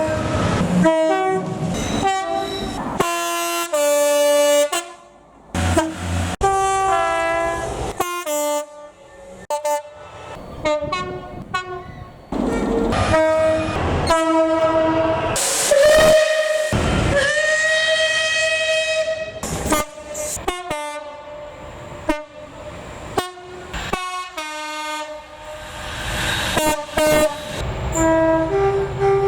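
Two-tone horns of British trains sounded over and over in quick patterns of high and low notes, played like a tune, across several short clips. Partway through one horn holds a long note for a few seconds over the noise of the train passing.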